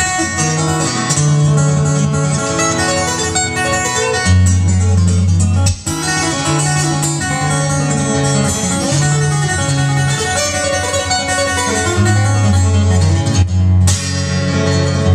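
Solo acoustic guitar played fingerstyle: a melody picked over changing bass notes, with a short break in the sound near the middle.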